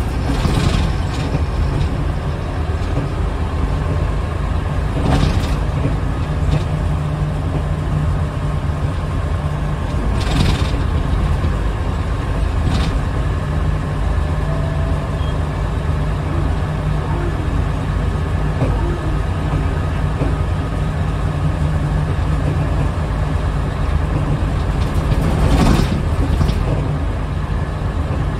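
Cabin sound of a 1997 Nissan Diesel UA (KC-UA460HSN) route bus on the move at about 50 km/h: the diesel engine's steady drone with road noise. There are a few brief knocks or rattles along the way.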